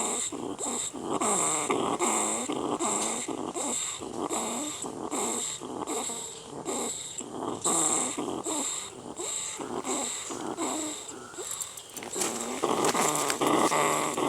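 Angry-rat sound effect: a continuous run of harsh growling, hissing calls, about two a second, louder near the end.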